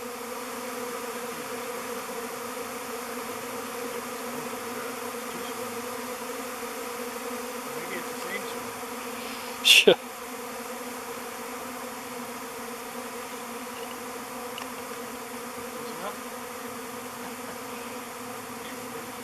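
Honeybee swarm in flight, thousands of bees making a steady, even buzz as the swarm closes in on the hive. About halfway through, a short loud swish drops in pitch.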